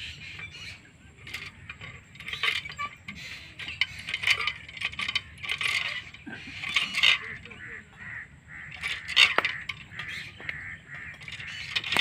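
Birds chirping and calling in quick, irregular high-pitched bursts.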